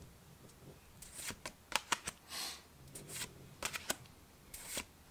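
Pokémon trading cards being flipped through one by one in the hand: a string of short, light card snaps and slides, with a brief swish about halfway through.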